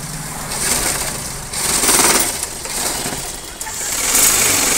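Sewing machine stitching fabric in three runs of about a second each, with a rapid mechanical rattle that eases between runs.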